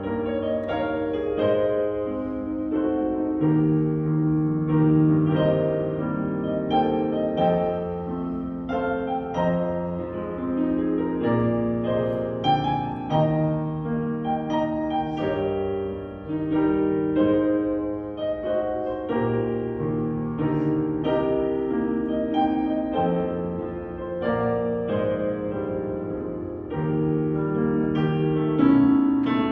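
Instrumental piano music: held chords under a melody line.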